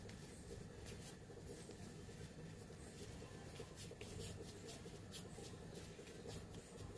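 Faint, scattered light clicks and scratches over a steady low hum.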